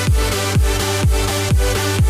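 Electronic dance background music: a deep kick drum about twice a second under sustained synth chords.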